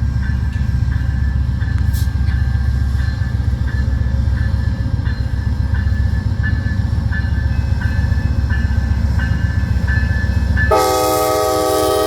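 Heavy low rumble of an approaching Amtrak passenger train with a crossing bell dinging about once every two-thirds of a second. Near the end the locomotive's multi-note air horn starts abruptly and holds a loud chord.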